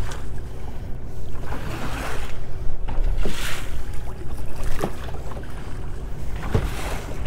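Choppy lake waves splashing against the hull of an aluminum bass boat, with wind rumbling on the microphone. The splashing swells up every couple of seconds, and a few light knocks come from the hull.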